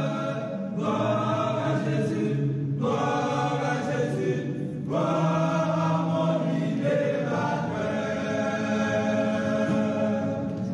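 A choir singing, several voices together on long held notes in phrases with short breaks every two seconds or so.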